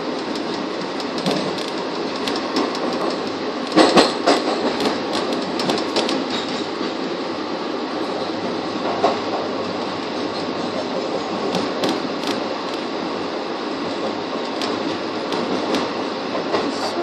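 Express passenger train running, heard from inside the coach: a steady rumble of wheels on rail with frequent sharp clicks and knocks, and a louder clatter about four seconds in.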